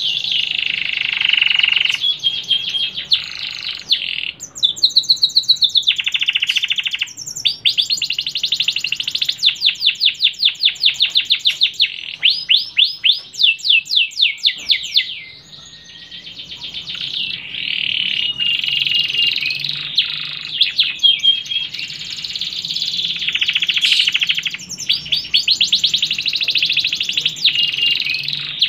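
Domestic canary singing a long, varied song of high rolling phrases and fast trills of rapidly repeated notes, with a short break about halfway through before it sings on.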